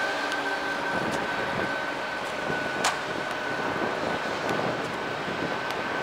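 Steady distant traffic noise, with a thin high whine held throughout and a single sharp click about three seconds in.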